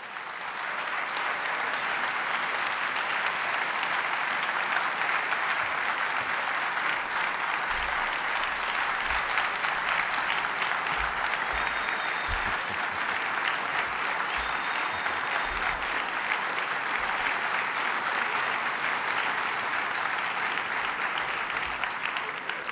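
Large audience applauding steadily in a big hall, building up in the first second and starting to die away near the end.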